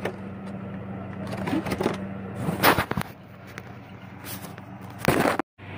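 Handling noise as the phone camera is picked up and moved about, with a few short knocks and rustles of plastic packaging over a steady low hum; the sound cuts out briefly near the end.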